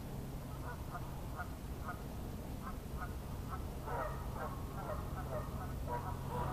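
Ducks quacking in a quick series of short calls, getting busier about four seconds in.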